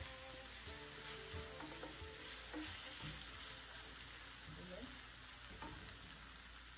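Chicken pieces sizzling in hot oil in a non-stick frying pan while a wooden spatula stirs and turns them, with a few soft scrapes and knocks of the spatula against the pan.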